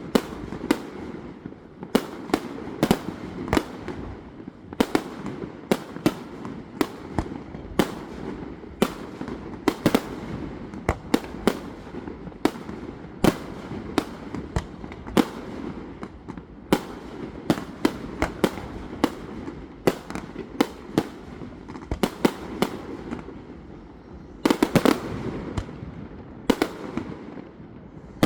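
Fireworks display: sharp bangs of exploding shells at irregular intervals over a steady background noise, with a rapid cluster of bangs near the end.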